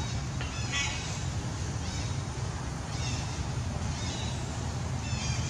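A few short high-pitched animal calls, the clearest about half a second in, over a steady low rumble.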